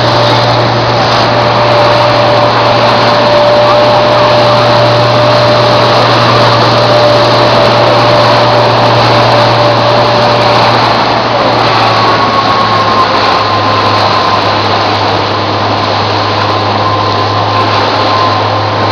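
Motor of a rigid inflatable boat running steadily under way, with wind and water rushing past the hull. Its steady whine changes note about eleven seconds in.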